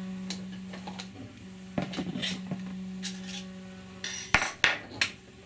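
3D-printed plastic spool-holder stand parts being picked up and handled on a workbench: scattered light knocks and clicks, with a cluster of sharper clicks near the end, over a steady low hum.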